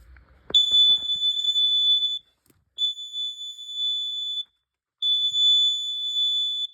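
First Alert CO400 carbon monoxide alarm sounding in test mode: a click as its test button is pressed, then three long, loud, high-pitched beeps, each about a second and a half, with short gaps between.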